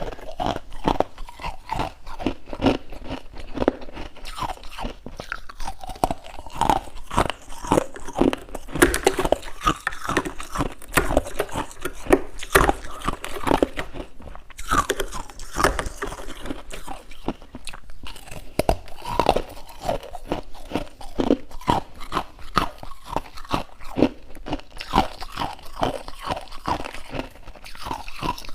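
Close-up biting and chewing of crunchy freezer frost, with a dense run of irregular crisp crunches.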